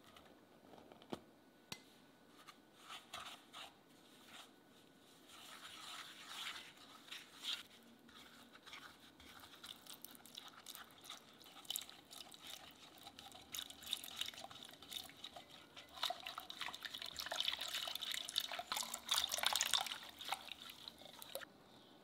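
Wire whisk scraping and beating egg yolks, sugar and flour in a saucepan, with milk poured in partway through. The scratchy whisking grows denser and louder over the last several seconds.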